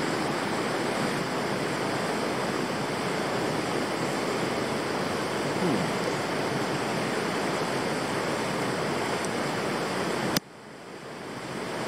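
Steady rushing of a flowing river. Near the end a sharp click cuts it short, and it fades back up over the last second or so.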